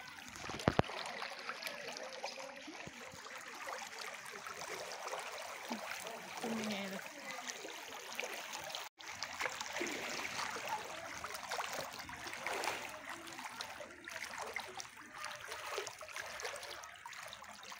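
Floodwater flowing and splashing: a steady rushing hiss dotted with many small splashes. A sharp click stands out about a second in, and the sound cuts out for an instant about halfway through.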